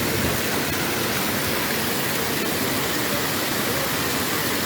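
Steady rushing of flowing floodwater, an even, unbroken noise.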